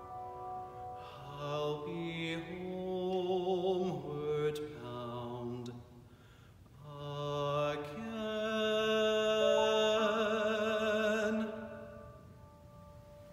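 Male classical voice singing with vibrato over piano accompaniment, ending the song on a long held note that stops about eleven and a half seconds in, after which the piano chord fades out.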